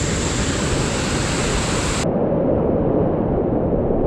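Whitewater rapids rushing loudly as a steady hiss. About two seconds in, the sound changes abruptly to a duller, deeper rush of water close around the kayak.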